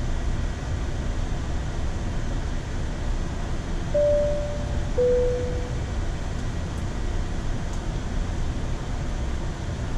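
Steady low rumble and hiss on the flight deck of a Boeing 787 taxiing at idle. About four seconds in comes a two-note chime, the second note lower and fading.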